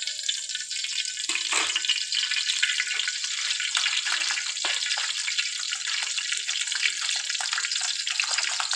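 Cooking oil sizzling as it heats in a metal karahi: a steady hiss with many small crackles.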